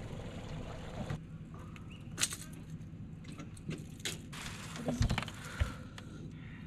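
Scattered knocks and thuds as a netted barramundi and the landing net are handled on a boat deck, the loudest about five seconds in, over a steady low hum.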